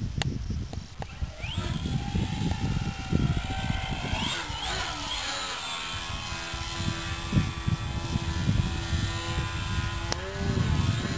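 The electric motor and propeller of a balsa 3D aerobatic model airplane in flight, whining as the throttle changes. The pitch rises about two seconds in, climbs and then falls away a little before the middle, holds a steady tone, and rises briefly near the end, over a low rumble.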